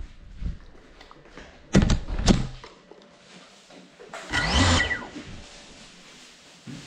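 Small FPV quadcopter drone crashing indoors: two sharp knocks about two seconds in, then a brief burst of motor and propeller whine near the middle that falls in pitch as it dies away.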